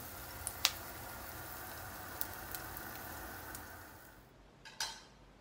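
Whisked eggs frying in olive oil in a pan, a steady sizzle with a few small pops. The sizzle cuts off about four seconds in, and a short knock follows near the end.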